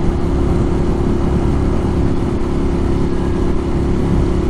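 Ducati Monster 1200 R's 1198 cc L-twin engine running at a steady cruising speed through an aftermarket Termignoni exhaust, its note holding one pitch over a heavy low rumble.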